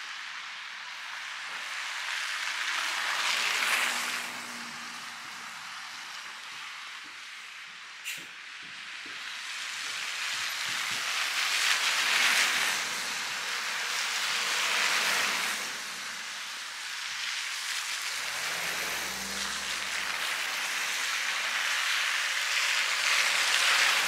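Vehicles passing on a wet, snowy street: tyre hiss swells and fades several times, and a vehicle's engine is heard low down about three-quarters of the way through.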